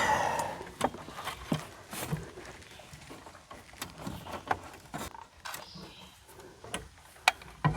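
Irregular light clicks and taps of a screwdriver and small parts being handled while an RV refrigerator igniter is removed and replaced, with a brief rustle at the start.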